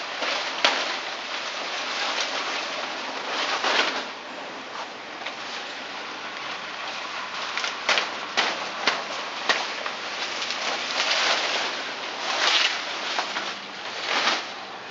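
Dry leaves and dead plant stalks rustling and crackling as someone pulls and tears at dense foliage, with several sharp snaps between about eight and ten seconds in.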